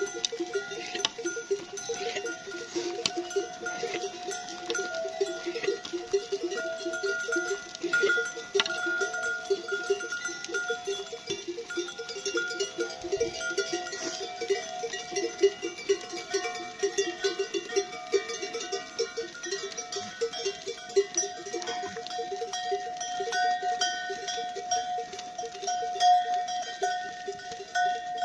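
Many bells on a moving herd of goats, clanking and ringing without a break.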